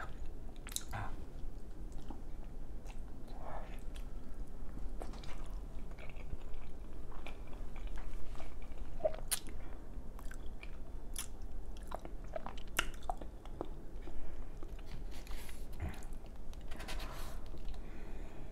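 Close-miked chewing of fettuccine noodles, with irregular wet mouth clicks and lip smacks.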